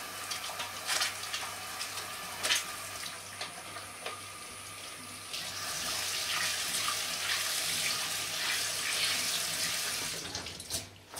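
Kitchen tap running into a stainless steel sink while hands are rubbed and rinsed under the stream, with small splashes. The flow gets louder about five seconds in and stops near the end.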